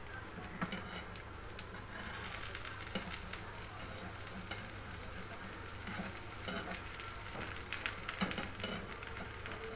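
Dosa batter sizzling in a little oil in a hot nonstick frying pan, with scattered light scrapes and taps of a steel spatula working around its edge.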